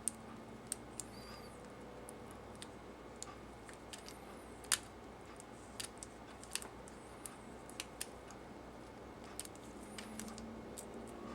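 Scattered small, sharp clicks and light scrapes of fiddly hand work on the tiny plastic bulb holder of a car window switch, pulling out the burned-out wire-lead miniature bulb; the sharpest click comes about halfway through.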